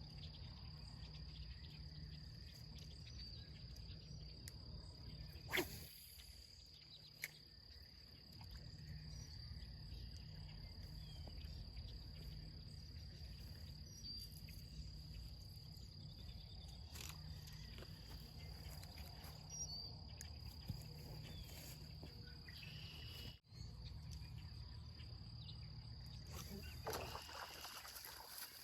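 Insects chirring steadily on one high note over a low outdoor rumble, with a sharp click about five seconds in and a smaller one a little later.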